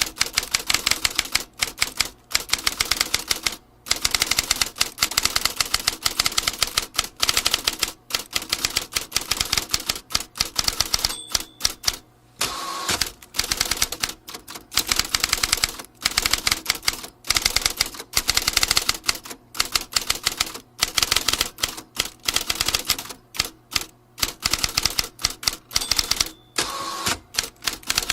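Vintage typewriter being typed on: fast runs of key strikes, broken by short pauses, with a brief ring twice, about eleven seconds in and near the end.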